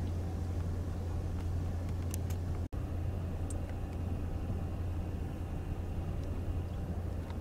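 Steady engine and road drone inside a moving car's cabin: a constant low hum with tyre noise. The sound cuts out for an instant about a third of the way in.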